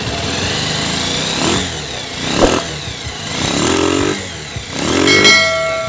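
Kawasaki Rouser's single-cylinder four-stroke motorcycle engine running after a tune-up with freshly adjusted valve clearance, revved by the throttle four times, each rev rising and falling back to idle.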